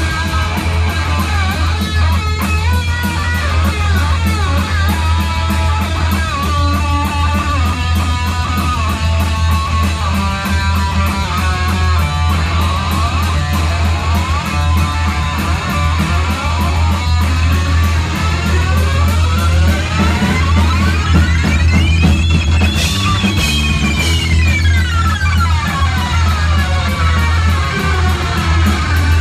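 Distorted electric guitar solo in a live heavy metal song, over a steady low bass and drum backing. Fast runs of notes give way to a long slide that sweeps up in pitch and back down near the end, played by running a green slide-like object along the strings.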